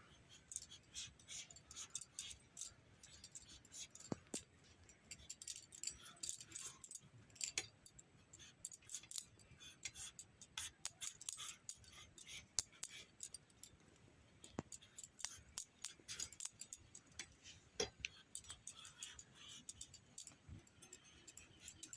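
A blade scraping the skin off a raw green papaya in quick, irregular short strokes, several a second.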